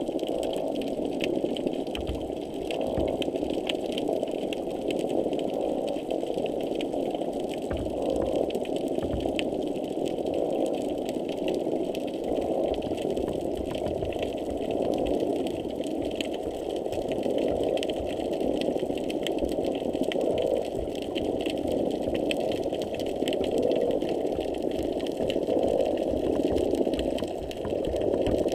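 Underwater noise picked up by a hydrophone beside a pier piling: a steady, dense hum that swells every few seconds, with many sharp clicks throughout. This is one of the repetitive noises that are always present just below the surface there, unusually intense on this dive.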